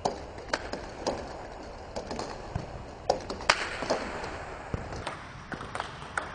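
Table tennis balls clicking in a multi-ball drill: backspin balls bouncing on the table and struck with backhand topspin strokes, about two or three sharp clicks a second at an uneven pace. The loudest click comes about three and a half seconds in.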